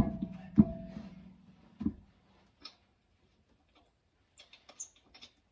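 Metal clanks at the wheel as the spare goes onto the hub and the lug nuts are handled: two sharp knocks in the first second with a ringing that dies away, a third knock near two seconds, then light scattered clicks of the nuts.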